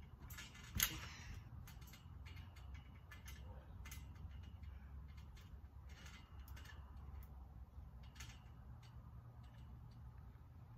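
One loud thump of a person landing on a trampoline about a second in, then faint scattered clicks and creaks from the trampoline's springs and frame as she shifts about on the mat.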